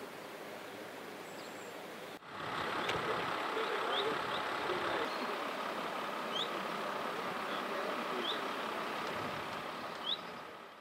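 Steady outdoor roadside background noise, with the hum of vehicles, stepping up louder about two seconds in, with short high chirps every couple of seconds; it fades out at the end.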